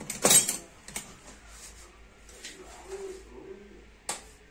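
Kitchen items being handled while looking for the salt: a burst of clattering at the start, then light knocks and a sharp click near the end.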